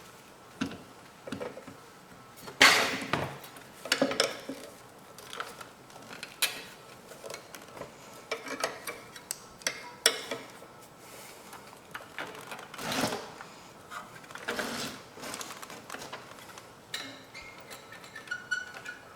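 Irregular metallic clinks, taps and scrapes of a hand tool working the sheet-metal bracket beside the carburetor's throttle and governor linkage on a Briggs & Stratton mower engine, bending it back so the linkage no longer catches on it and sticks open.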